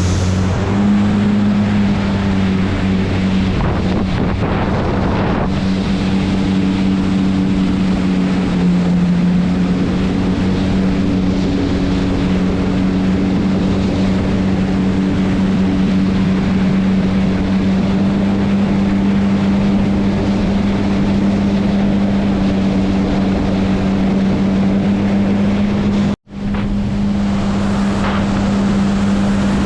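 Jet ski engine running steadily at speed, with water rushing and wind buffeting the microphone. The sound drops out for an instant near the end.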